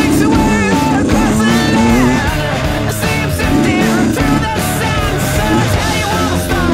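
Rock music with guitar and a sung vocal line, loud and continuous.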